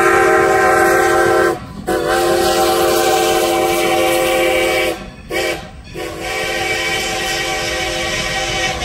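Steam locomotive whistle blowing a chord in the grade-crossing signal: the end of a long blast about a second and a half in, a second long blast, a short toot about five seconds in, then a final long blast that is still sounding at the end. A low rumble of the passing train runs underneath.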